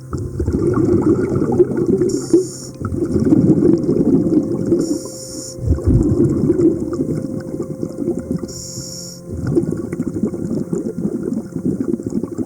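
A scuba diver breathing underwater: a short regulator hiss on each inhale, then a long gurgling rush of exhaled bubbles, repeating about every three and a half seconds.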